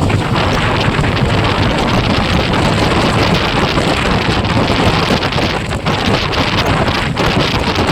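Wind rushing over the microphone of a moving motorcycle, a steady loud noise with the vehicle running beneath it.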